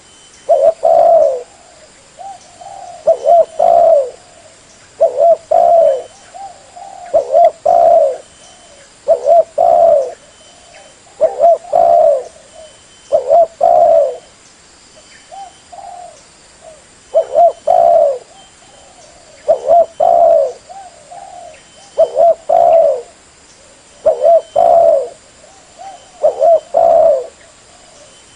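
Spotted dove (tekukur) cooing: a short phrase of two or three coos repeated about every two seconds.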